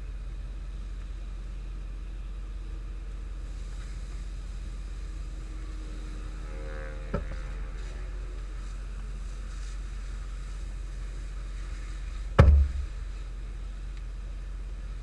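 Steady low hum of an idling vehicle, with a click about seven seconds in and a loud door slam with a deep thump about twelve and a half seconds in.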